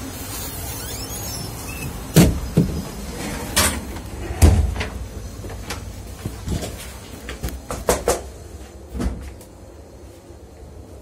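Steady low rumble of a moving passenger train heard from inside a carriage, broken by loud bangs and clatters as carriage doors are opened and shut between cars; the loudest bang comes about four and a half seconds in, followed by lighter clicks, and the rumble grows quieter near the end.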